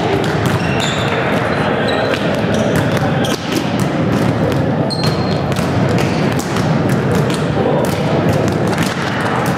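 Volleyballs being struck by hand and bouncing on a sports hall floor: many irregular, overlapping smacks and thuds, several a second, echoing in the large hall.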